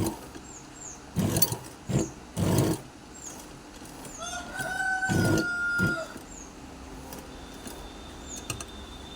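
A single long, drawn-out animal call about four seconds in, lasting under two seconds and holding a fairly steady pitch, among several short bursts of noise. Faint high chirps repeat in the background.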